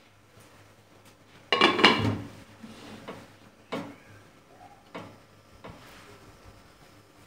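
Aluminium pressure cooker lid being put on: a loud metallic clatter about one and a half seconds in as the lid goes onto the pot, then a few lighter clicks and knocks as it is turned and the handles are locked together.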